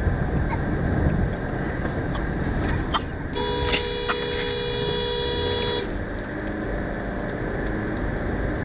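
Steady road and tyre noise inside a moving car, with a car horn held for about two and a half seconds, starting about three seconds in.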